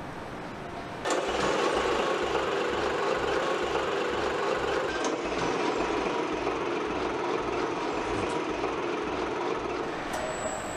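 Volvo diesel truck engine running on a test bench. Its noise jumps sharply louder about a second in and then holds steady, with a low pulsing underneath.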